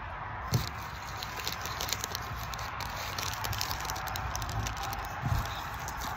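Chocolate bar wrapper crinkling and crackling as it is pulled and torn open by hand, with a dull bump about half a second in and another near the end.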